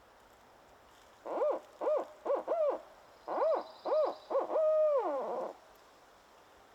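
Barred owl hooting its 'who-cooks-for-you, who-cooks-for-you-all' call: two groups of four hoots, the last one drawn out and falling away at the end.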